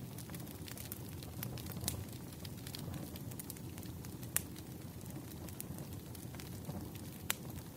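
Wood fire burning: a steady low rumble with irregular sharp crackles and pops, the loudest pops about two, four and a half and seven seconds in.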